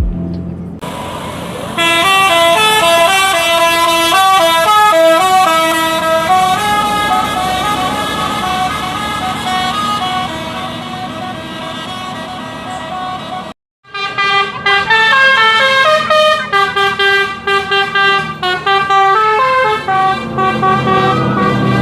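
Telolet basuri bus horns: a multi-trumpet musical horn set playing quick flute-like tunes of stepped notes over the bus's running engine. The sound breaks off for a moment a little past halfway, then another horn tune starts.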